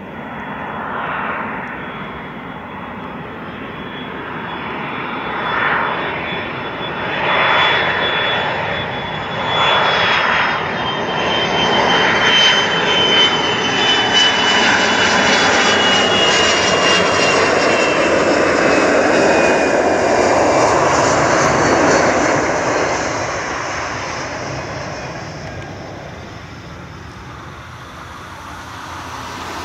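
Boeing 727-100's three Pratt & Whitney JT8D turbofans on landing approach: a loud jet rumble with a high engine whine that slowly falls in pitch as the jet passes, building to a peak and then fading as it reaches the runway.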